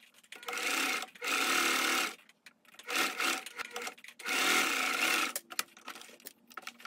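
Electric domestic sewing machine stitching a seam in four short runs, stopping and starting between them as the fabric is guided under the presser foot.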